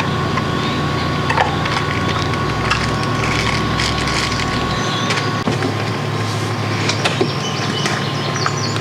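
A power drill with a hole saw, its motor running steadily while it cuts through wood with cracking and splintering. The motor's low hum shifts twice, about two and a half and five seconds in.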